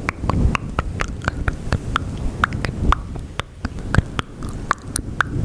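Close-miked ASMR mouth sounds: a rapid, irregular run of small wet clicks and pops over a low rumble.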